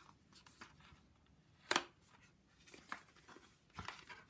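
Handling of a watercolor pan set's paper packaging: scattered small taps and rustles, with one sharp louder crackle about two seconds in.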